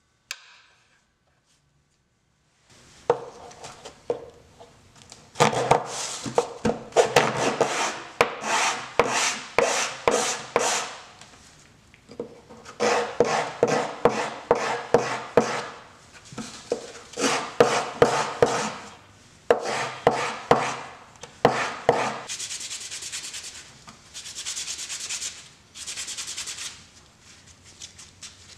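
Painted wooden knob of a block plane rubbed back and forth by hand on a sheet of sandpaper. Quick scraping strokes come in bursts with short pauses, starting about three seconds in. Over the last few seconds they become longer, smoother strokes.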